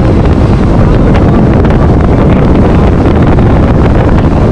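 Heavy wind buffeting the microphone, loud and steady, with the rumble of a boat under way.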